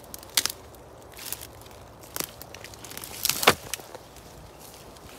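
Footsteps through forest litter with sharp cracks of sticks and twigs snapping: one about half a second in, another about two seconds in, and the loudest, a quick cluster of snaps, a little past three seconds.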